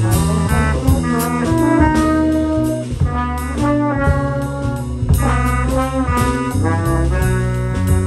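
A small band playing: two trombones sounding sustained notes together over an electric bass line, with a steady beat of sharp hits.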